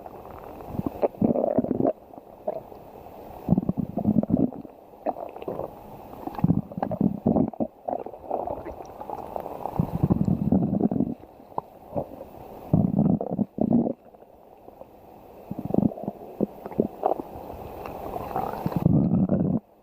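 Stomach growling: a string of irregular gurgling rumbles, one following another every second or two.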